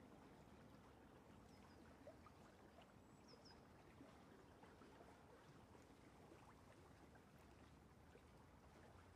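Very faint brushing: a flat brush dragging wet acrylic paint across a textured canvas in soft, scratchy back-and-forth strokes, barely above near silence.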